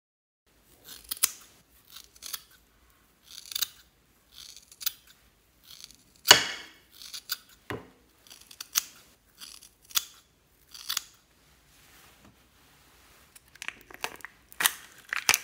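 Small yellow-handled scissors snipping repeatedly through dry orange craft fibre, about a dozen short, sharp cuts, with a few more sharp clicks near the end.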